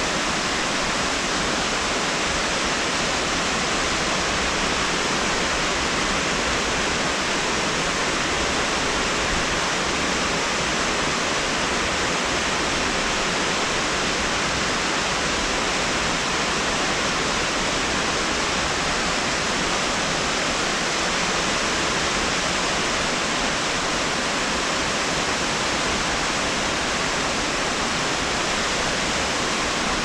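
Mountain cascade running over rocks: a steady, even rush of water.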